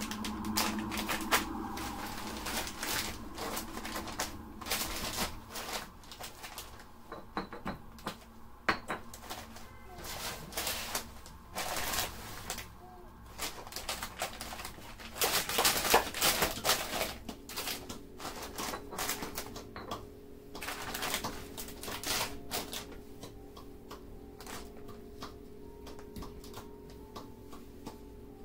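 Plastic grocery bags and food packaging being handled and set down: irregular crinkling, rustling and light taps, busiest in the first two-thirds. A steady low hum comes in a little past halfway.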